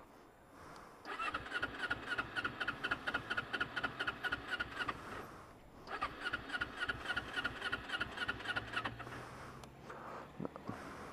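Kawasaki Ninja 250's parallel-twin engine cranked twice on the electric starter, about four seconds and then about three, with a fast, even chugging rhythm. It never catches: the bike has run out of fuel. A short knock comes near the end.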